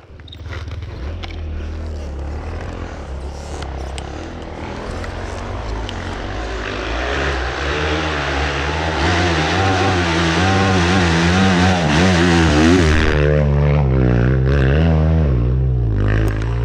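Dirt bike engine running under way, with the revs rising and falling again and again in the second half as the rider works the throttle, over a steady rushing noise.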